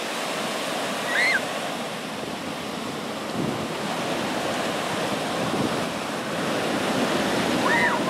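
Ocean surf breaking and washing up the beach in a steady rush. Brief high-pitched cries cut through it about a second in and again near the end.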